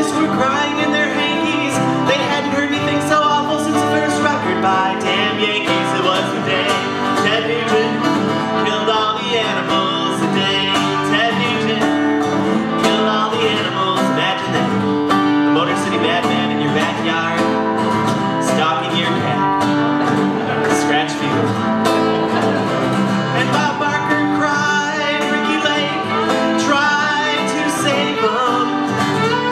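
Live acoustic folk song: an acoustic guitar strummed in a steady rhythm with a fiddle playing along.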